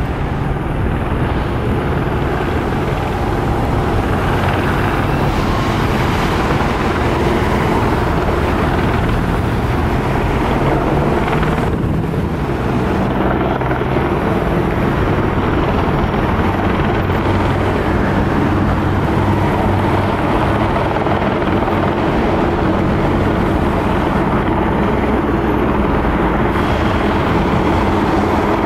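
Loud, steady engine noise: a heavy motor running without letup.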